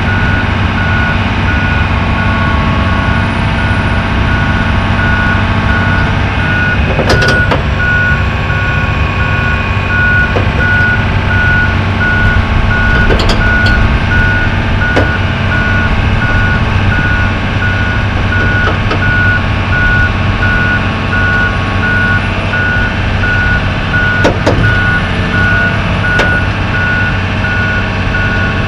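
Backup alarm beeping steadily at an even pace over a heavy diesel engine running, as a John Deere 3156G tracked log loader travels along a lowbed trailer deck; a few short knocks sound along the way.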